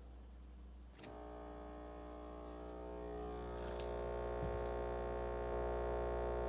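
LG GW-B509SQJZ refrigerator humming. About a second in there is a click, and a droning tone of several pitches rises over the steady low hum, growing louder.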